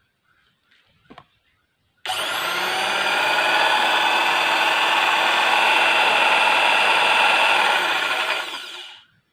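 Electric round-blade cloth cutter, a 200 W handheld machine with a 90 mm circular knife, switched on and running free without fabric: its motor starts suddenly with a high whine, runs steadily for about six seconds, then winds down after switch-off. A small click comes about a second in.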